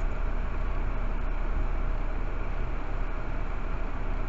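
Steady low engine rumble of vehicles idling at a standstill, heard from inside a car's cabin with a heavy lorry standing close alongside.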